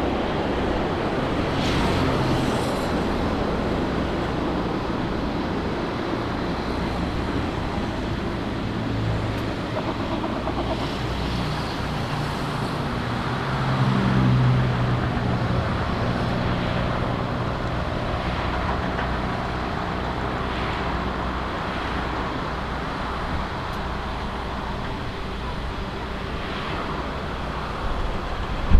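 Steady engine rumble with a low hum, swelling briefly about fourteen seconds in.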